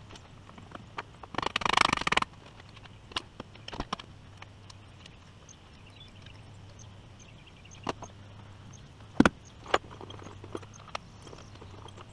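Scattered sharp clicks and knocks of hand tools at work on a boat's sterndrive outdrive, with a short rattling burst about two seconds in, over a faint steady low hum.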